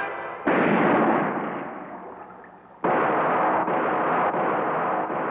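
Two loud, noisy blast-like sound effects on an animated cartoon's soundtrack. The first hits about half a second in and fades away over about two seconds. The second starts abruptly near the middle and carries on steadily.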